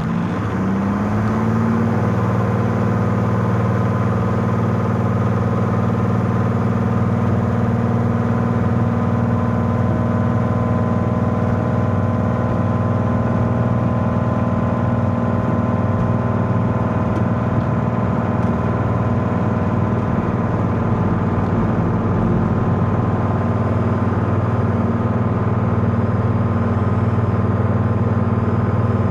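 Cozy MKIV canard airplane's pusher engine and propeller at full takeoff power during the takeoff roll, heard inside the cockpit. The engine note rises briefly about a second in as power comes up, then holds steady.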